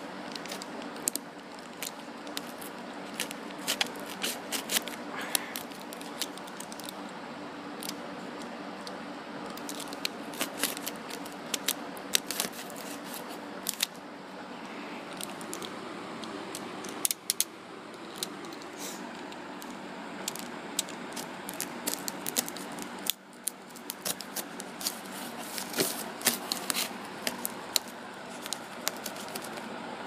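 Red pen-style box cutter slitting the packing tape on a cardboard shipping box, with many sharp, irregular clicks and crackles of tape and cardboard as it is cut and handled.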